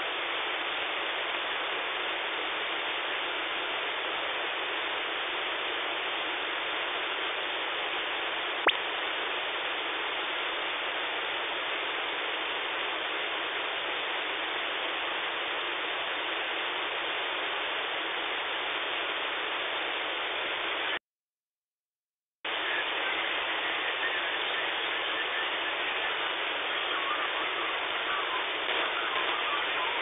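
Receiver static from a KiwiSDR web receiver tuned to the 11-metre CB band in upper sideband: a steady hiss with no station coming through. There is a single click about nine seconds in, and the audio cuts out completely for about a second and a half two thirds of the way through before the hiss returns.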